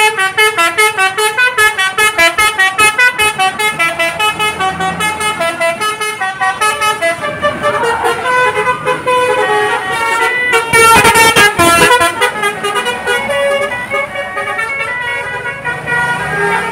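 Bus telolet horn, a Basuri multi-trumpet air horn, playing a tune: a fast run of short stepped notes pulsing about four times a second, then longer held chords. A loud noisy burst comes about eleven seconds in.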